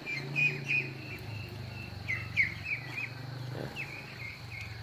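Birds chirping in quick, repeated short notes, over a low steady hum that fades about three and a half seconds in.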